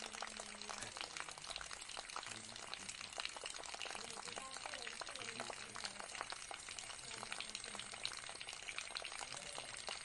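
Tabletop ceramic pot fountain running: thin streams of water trickling from a tilted jug into a pot and down into the basin, a steady dense patter of small splashes and drips.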